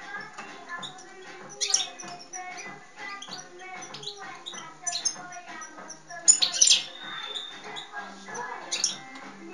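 Caged European goldfinch singing: quick twittering notes, with the brightest, highest bursts a couple of seconds in and again around six and a half seconds.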